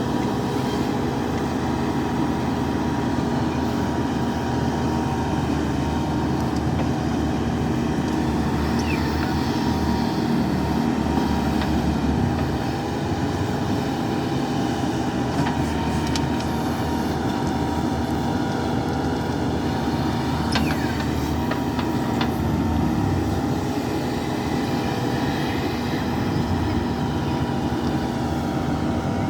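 JCB 3DX backhoe loader's diesel engine running steadily, with a few faint knocks.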